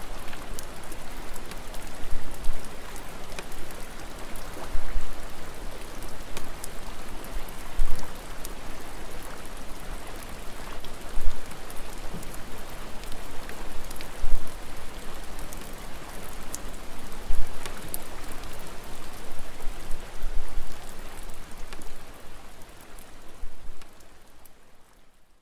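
Steady rain falling on still water, with the patter of many individual drops striking the surface. It fades out near the end.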